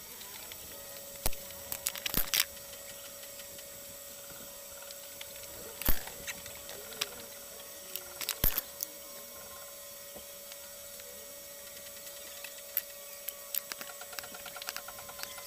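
Handling noise as makeup items and the compact case are picked up and used: scattered sharp clicks and taps, some in quick little clusters, over a steady hiss and a faint steady hum.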